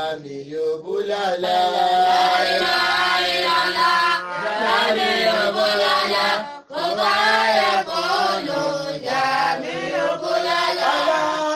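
Melodic religious chanting by a voice, with long held, wavering notes and a brief break about six and a half seconds in.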